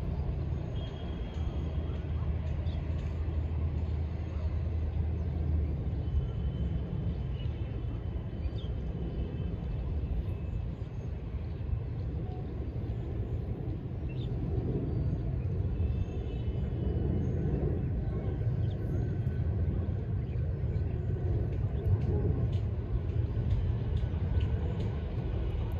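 Steady low rumble of distant city traffic, with a low steady hum that stops about six seconds in and faint short high tones now and then.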